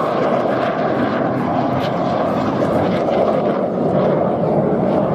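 Steady jet noise from a Red Arrows BAE Hawk T1, its Rolls-Royce Turbomeca Adour turbofan running as the jet flies its aerobatic display.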